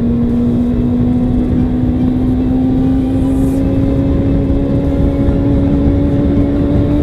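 Kawasaki ZZR400's inline-four engine pulling hard in one gear, its pitch climbing slowly and steadily as the bike speeds up to overtake a car, with wind rushing over the microphone.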